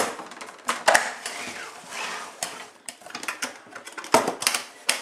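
Plastic toolbox being closed up: the tray and lid knocked into place with a run of irregular clacks and knocks, then clicks at the front latches near the end.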